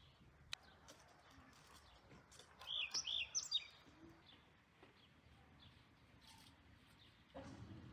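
A small bird chirps a quick run of a handful of high notes about three seconds in, over a faint yard background. A single sharp click comes about half a second in.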